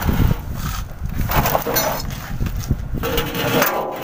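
A steel oil drum being pushed and scraped across the floor into place under a truck's engine, with uneven scraping and knocks of metal and a brief squeak a little before halfway.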